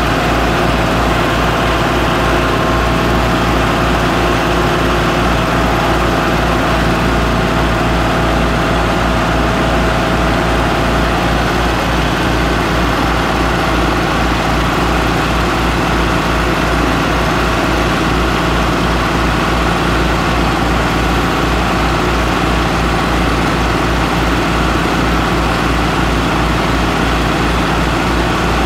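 Small Harbor Freight gas engine running steadily to drive a homemade shaking topsoil screener, mixed with the running engine of a compact tractor whose front loader is dumping dirt onto the screen. A steady, unbroken engine sound with a low pulsing underneath.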